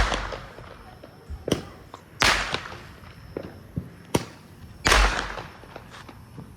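Fireworks going off: three loud bangs about two and a half seconds apart, each trailing off over about a second, with sharp single cracks between them. Described as really loud.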